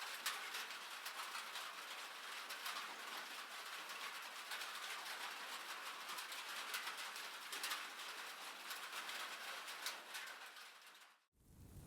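Gentle rain ambience: a soft, steady hiss of rainfall with scattered drop ticks. It fades out about eleven seconds in, and a deeper, fuller background bed starts just before the end.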